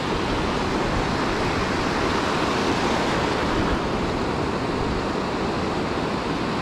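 Steady rush of ocean surf breaking and washing up a sandy beach.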